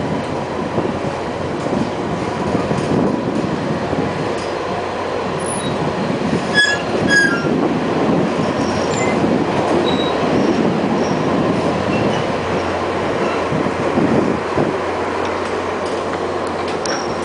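Passenger train running along the track, heard from an open window of one of its cars: a steady rumble of wheels on rail, with a cluster of brief high squeals about six to seven seconds in.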